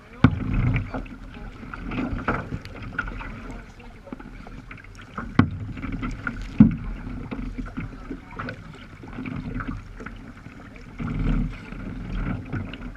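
Sea water sloshing and splashing against a sea kayak's bow as it moves through light chop, in uneven surges, with a few sharp knocks.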